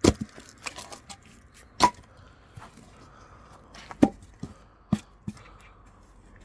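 Axe chopping firewood: green oak logs split with sharp strikes. The loudest strike comes right at the start, and others follow about two, four and five seconds in, with lighter knocks of wood between.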